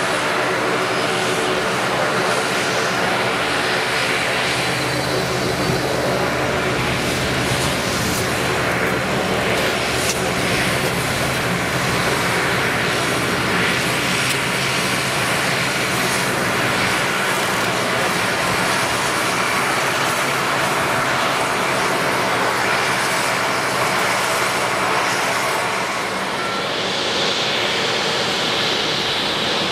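Saab 2000's two turboprop engines and six-bladed propellers running at taxi power: a steady drone made of several steady tones over a broad rush.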